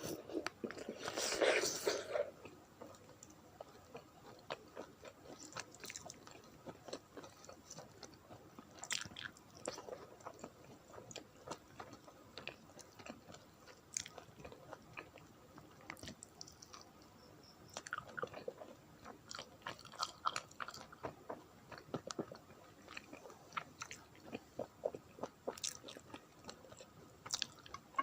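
Close-miked chewing and wet mouth sounds of someone eating rice with dal and curries: irregular soft smacks and clicks throughout, with a louder, longer crunching bite about a second in.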